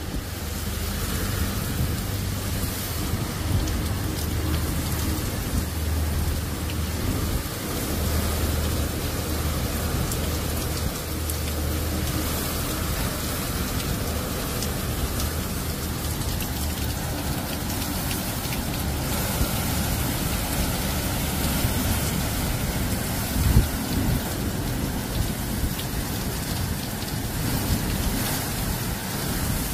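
Heavy rain pouring in strong storm winds as a rain-wrapped tornado nears, with a deep low rumble under the hiss of the rain, strongest in the first half. One sudden louder bang comes about three-quarters of the way through.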